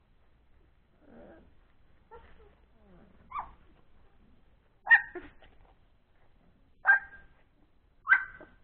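Three-week-old Old English Sheepdog puppies whimpering and squealing in short, high cries: a few faint ones, then three louder squeals in the second half.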